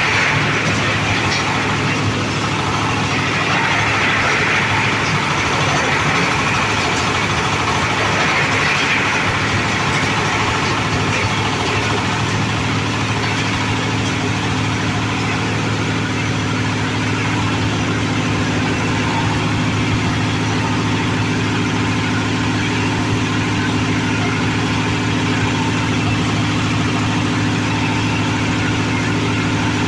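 Oil palm loose-fruit thresher running steadily on test, its engine giving a continuous even drone. A brighter rushing noise rides over it for roughly the first ten seconds.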